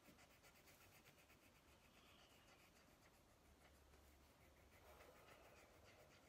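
Faint scratching of graphite pencils on paper as a small circle is shaded in.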